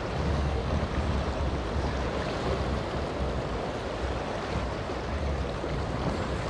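Rough water and breaking waves washing around a small center-console boat as its hull crashes through the chop and throws spray, with wind rumbling in gusts on the microphone.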